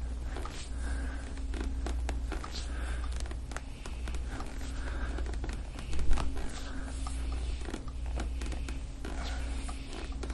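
Skin and clothing rubbing and scraping under a forearm and elbow pressing deep into a bare upper back, with small clicks throughout. A low hum sits underneath, and there is one sharper, louder knock about six seconds in.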